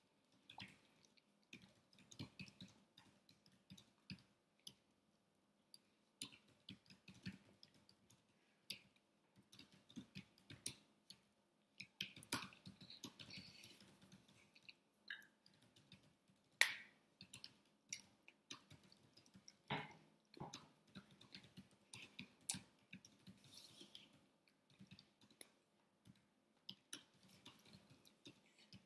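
Faint, irregular clicks and soft taps from a person signing in sign language: hands and jewellery knocking together and lips smacking as she mouths words, with one sharper click about halfway through.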